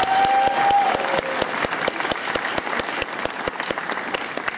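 Audience applauding, with a brief held tone sounding over the clapping in the first second.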